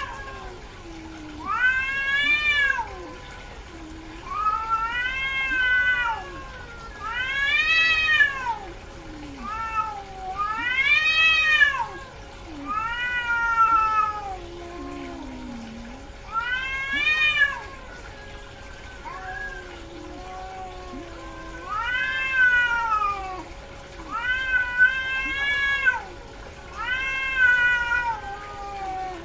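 Female cat in heat yowling over and over: drawn-out meows, each about a second long, rising and then falling in pitch, repeated every two to three seconds.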